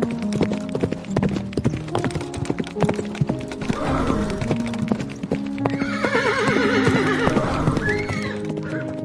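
Horse hooves clip-clopping in a quick, uneven run of strikes, with a long, wavering horse whinny about six seconds in, over background music with held notes.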